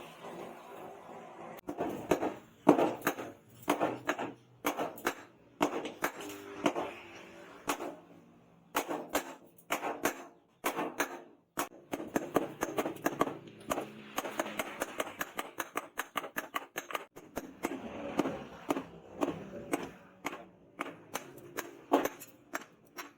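Hammer striking steel: an irregular run of sharp metallic knocks, some in quick clusters, with short pauses between.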